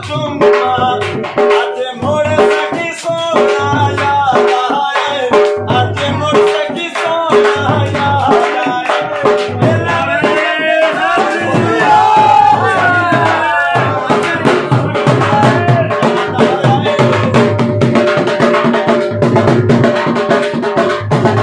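Dhamal music: a dhol beaten in a steady, dense rhythm under a melody of pitched notes, some gliding, playing on without a break.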